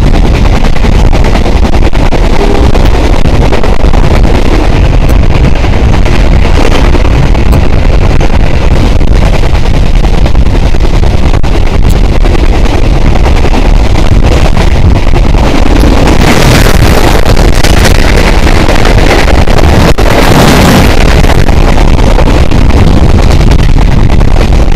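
Passenger train running at speed, heard from outside a carriage window: a steady rushing rumble with heavy wind on the microphone. A brighter, louder hiss comes in from about sixteen to twenty-one seconds in.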